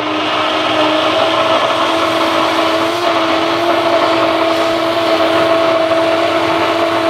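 Electric immersion (stick) blender running at one steady speed, held at the bottom of a tall plastic jug of egg and oil: an even motor hum with a whirring hiss. It is emulsifying the mixture into mayonnaise, which thickens and rises up the jug.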